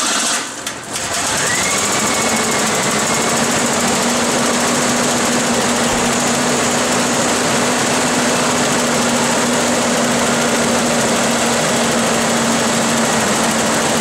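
1988 Ford Bronco II's 2.9-litre V6 starting about a second in, then running at a steady, even idle. It runs smoothly now that the fuel pressure regulator, whose burst diaphragm was leaking fuel into the intake and causing a misfire, has been rebuilt.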